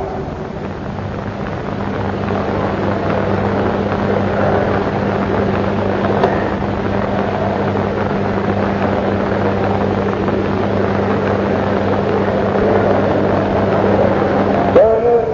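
Steady rushing noise with a low electrical hum from an old live recording's sound system, in a pause between recited verses; a man's chanting voice comes back in right at the end.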